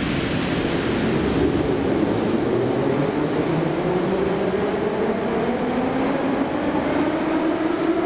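Metro train on the St Petersburg metro moving off from the platform. Its traction motors whine, rising steadily in pitch as it speeds up, over a continuous rumble of wheels on rail.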